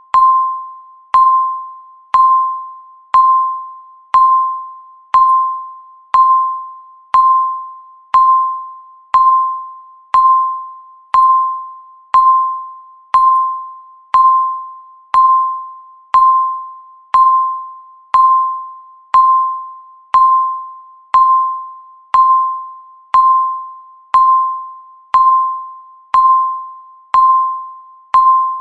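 Electronic countdown-timer beep sounding once a second: a short high tone that starts sharply and fades quickly, repeated evenly to mark each second counting down.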